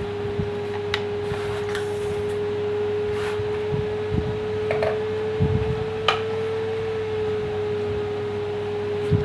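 A steady electrical whine, one held tone that rises slightly in pitch and eases back about two-thirds of the way through, over a low hum, with a few light clicks of handling.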